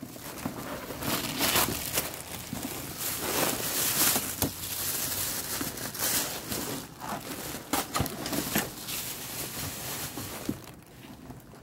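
Plastic packing wrap being pulled off a new handbag and crumpled: a dense crinkling with many sharp crackles that dies down near the end.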